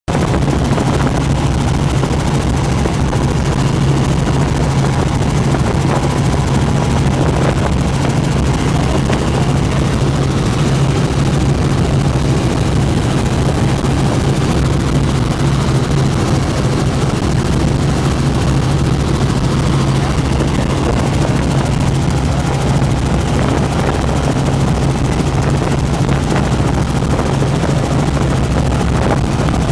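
Helicopter in cruising flight heard from inside the cabin: a loud, steady drone of engine and rotor with a strong low hum.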